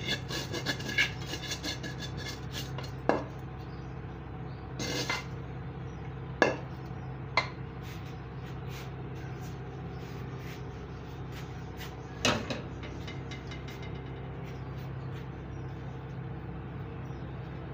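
A spoon scraping and clinking against a steel pan as a crumbly mixture is emptied into a steel tray. It is followed by a few single metal knocks spread out over the rest, all over a steady low hum.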